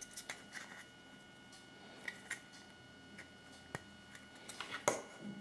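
Light clicks and taps of small plastic toy parts and a yellow plastic Kinder Surprise capsule being handled, with a sharp click near four seconds in and a short cluster of louder clicks near the end.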